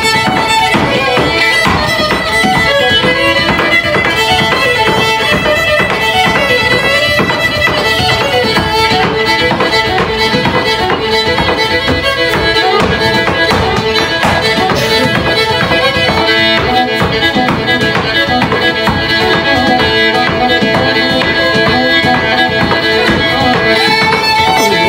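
Live fiddle tune played on a violin, with a step dancer's shoes tapping a quick rhythm on a wooden dance board.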